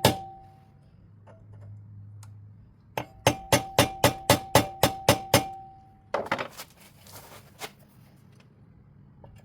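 Hammer blows on a metal part of a wake boat's wedge, each strike ringing: one blow at the start, then a run of about ten quick blows, about four a second, starting some three seconds in. A short metallic clatter follows.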